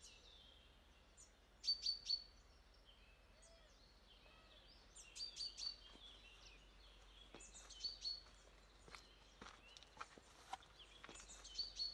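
Songbirds chirping faintly, short high calls coming in small bursts every few seconds.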